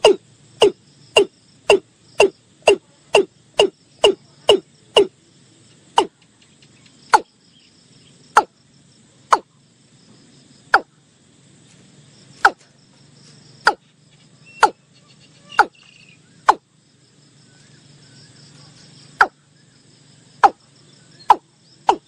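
Watercock calling: a run of short, sharp notes that each drop in pitch. They come about two a second at first, then slow to roughly one a second, break off for a couple of seconds, and quicken again near the end.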